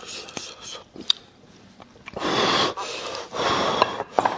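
Close-up mouth sounds of a person eating braised beef bones: small smacking clicks, then two loud, noisy breaths about a second apart.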